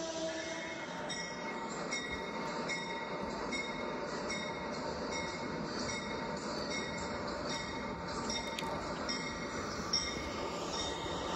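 LEGO train rolling along plastic LEGO track: a steady whirring rumble from the motor and wheels, with a faint light click recurring about every three-quarters of a second.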